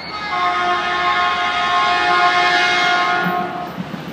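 An approaching passenger train's air horn sounding one long blast of several tones at once for a grade crossing. The blast cuts off about three and a half seconds in.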